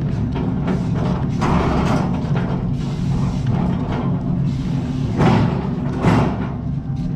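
Music with drums playing.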